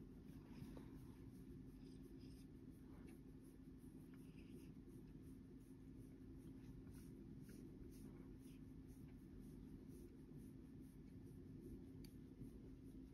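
Faint scratching and rustling as a cat claws and kicks at a person's hand, in scattered light scrapes over a low steady hum.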